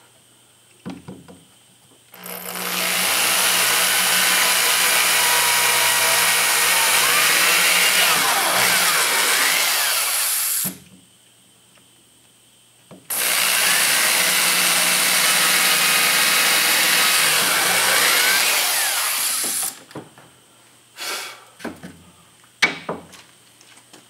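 Corded electric drill boring into a wooden plank, run in two long stretches of about eight and seven seconds with a short pause between. A few short knocks follow near the end.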